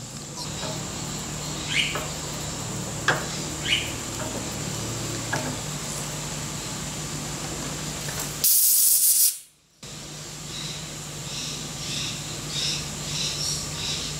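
Milling machine running steadily, a low hum with a constant high whine, while a reamer is worked to full depth in an aluminium block, with a few faint metallic ticks. About two-thirds of the way in comes a short, loud hiss, then a moment of near silence.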